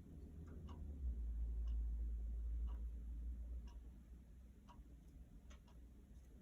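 Faint sharp clicks, roughly one a second but not quite evenly spaced, over a low rumble that swells for a couple of seconds.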